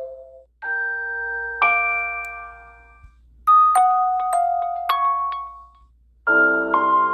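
Samsung Galaxy A71 5G alert tones played one after another. First comes a two-note chime, then a quick run of bell-like struck notes, and a fuller chord-like tone begins near the end.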